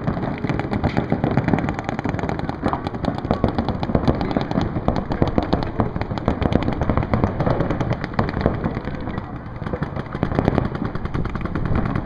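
Several paintball markers firing at once: a continuous, rapid stream of shots, many a second, throughout.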